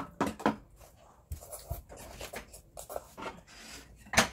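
Tableware clinking and knocking during a meal: spoons against bowls and small stainless steel cups set down on the table. A string of short knocks, with the loudest near the end.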